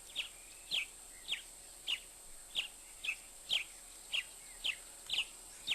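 A small animal calling at night: short, high chirps, each falling slightly in pitch, repeated steadily about twice a second.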